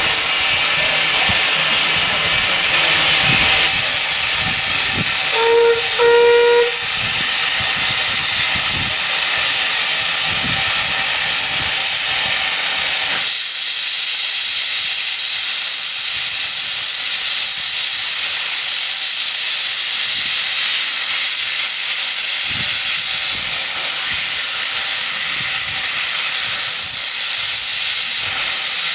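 Steam locomotive hissing loudly and steadily, with two short whistle toots about six seconds in. Irregular low thumps sound under the hiss in the first half and stop about halfway through.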